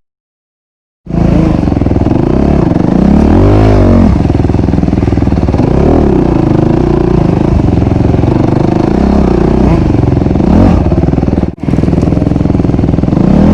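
Honda CRF250RX's single-cylinder four-stroke engine running hard, its pitch rising and falling as it revs up and down. It cuts in about a second in and briefly drops out near the end.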